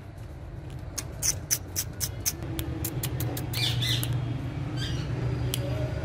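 Rose-ringed parakeet giving a short harsh squawk a little past halfway, with a fainter call about a second later, after a quick string of sharp clicks; a steady low hum runs underneath.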